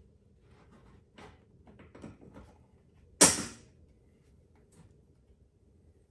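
Handling clicks and light knocks of an aftermarket footwell panel being held and shifted against an ATV's plastic fender to line up its bolt holes, with one sharp, loud knock about three seconds in.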